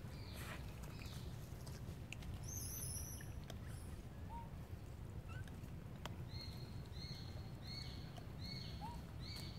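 Outdoor ambience with a steady low rumble. From about the middle on, a short, high, falling chirp repeats about twice a second.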